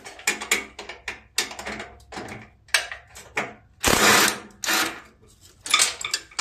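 Metal clicks and rattles of a wrench and socket working a nut on a mower deck bolt. A short, louder burst comes about four seconds in and another near the end.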